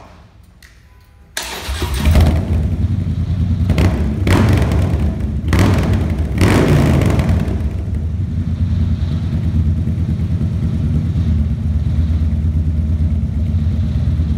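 Harley-Davidson Dyna Street Bob's Twin Cam V-twin engine starting up through a black two-into-one exhaust about a second and a half in. It is blipped a few times, then settles into a steady, loping idle.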